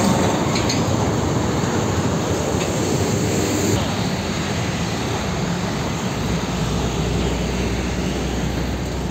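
Heavy diesel trucks driving past at close range: engine and tyre noise. About four seconds in the sound shifts to the next approaching truck, and a low, steady engine drone sets in a couple of seconds later.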